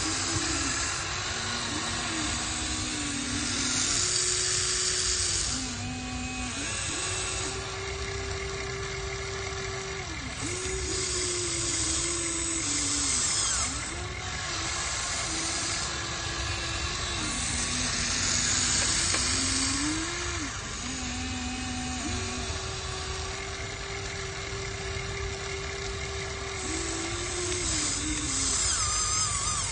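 Small electric motors of a radio-controlled excavator whining as it works. The pitch rises, holds and falls every few seconds as each movement starts and stops, with a low hum underneath and repeated bursts of high grinding hiss.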